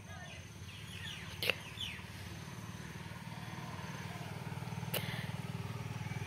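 A steady low engine drone with a fast even pulse, slowly getting louder, under a few short bird chirps in the first two seconds and two sharp clicks.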